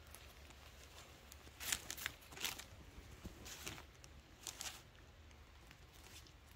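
Soft rustling of cloth as a printed suit is unfolded and spread out by hand, in a few short rustles about two seconds in, around three and a half seconds, and again near four and a half seconds.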